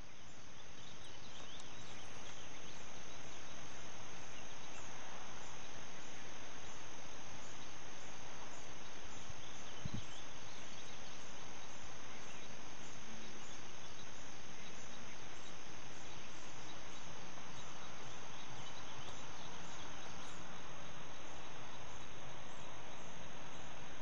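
Crickets chirring steadily, with a rapid regular pulsing on top, over an even background hiss. The sound fades up over the first few seconds.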